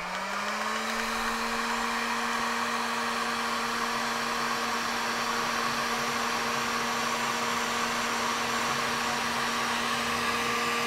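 Hot-air heat gun blowing on heat-shrink tubing over a coax cable's PL259 connector. Its fan motor is just reaching full speed at the start, then runs steadily: a steady hum over the rush of hot air.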